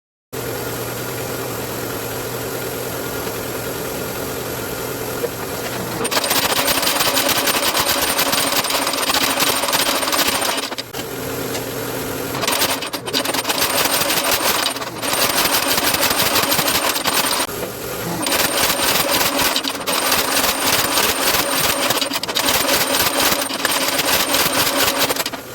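Power hammer running: its motor runs steadily for about six seconds, then the hammer strikes in rapid runs of blows, broken by a few brief pauses, drawing out a hot railroad spike.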